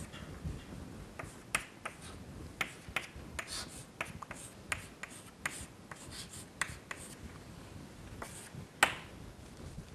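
Chalk on a blackboard during writing: a string of irregular sharp taps and short scratchy strokes, the sharpest tap near the end.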